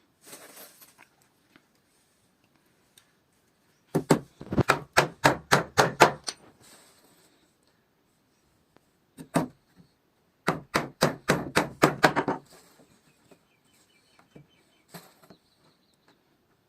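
Hammering on wood: two quick runs of about ten sharp blows each, a few seconds apart. There is a single blow shortly before the second run and another near the end.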